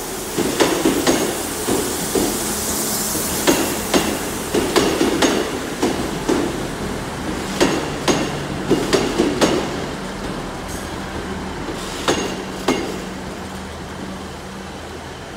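Class 158 diesel multiple unit arriving slowly: its wheels clack sharply and irregularly over points and rail joints in several clusters, over a steady low engine hum, and the clacking dies away near the end.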